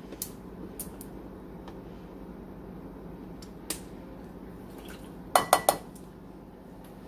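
Milk poured from a jug into a plastic measuring cup and tipped into a mixing bowl, with a few light clicks and then a quick run of sharp knocks of the plastic cup against the bowl about five and a half seconds in.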